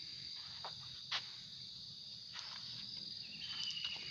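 Insects trilling in one steady high-pitched tone, with a few short crackles of footsteps on dry fallen leaves. A second, lower insect tone joins near the end.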